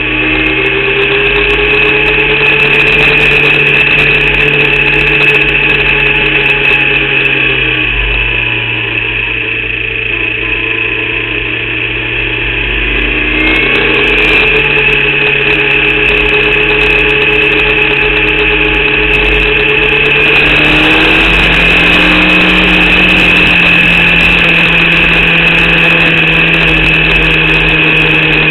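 Engine of a Formula Vauxhall 8v single-seater running hard at racing speed, heard from on board, with a steady high whine over it. The revs drop about eight seconds in, pick up again around thirteen seconds and step up near twenty seconds. The driver reports the engine misfiring during this race.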